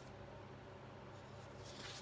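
Faint steady room hum, with a sheet of paper sliding and rustling near the end as one paper flash card is pulled away to show the next.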